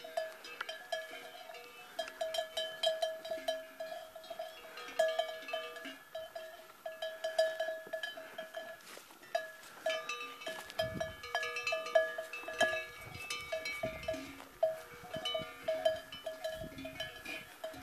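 Cowbells on grazing cattle clanking irregularly, several strikes a second, as the cows move their heads while feeding. Bursts of low rumble on the microphone come in about halfway through.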